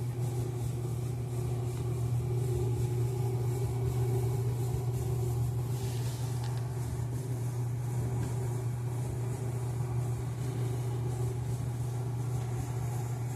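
Brastemp BSR10 10 kg washing machine running with a steady low hum.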